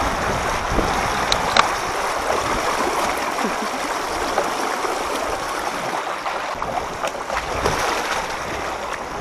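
Deep floodwater rushing and splashing: a steady watery noise with a few light clicks.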